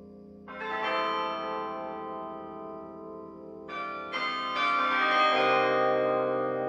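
Carillon bells playing: a chord dies away, then about half a second in a new chord of several bells is struck, followed by more strikes around four and five seconds, each ringing on and overlapping the next.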